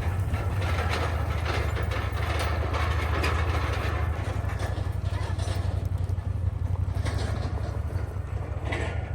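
A vehicle engine running steadily while driving, a low rumble with rattling and road noise over it.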